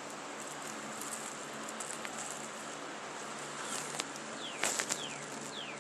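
Steady background hiss with a short, high, falling chirp repeated every half second or so, from a small animal, and a few light clicks about four seconds in.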